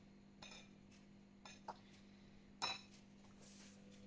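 A spoon clinking against a glass bowl and glass dessert cups as crushed biscuit-and-butter crumbs are scooped and spooned in: a few light clinks, the loudest a ringing one a little past halfway, over a low steady hum.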